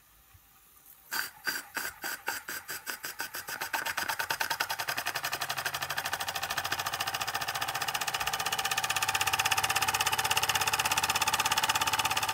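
Toy oscillating steam engine starting up. About a second in, its cylinder begins puffing steam exhaust with each stroke, speeding up over a few seconds into rapid, steady chuffing as the flywheel spins up.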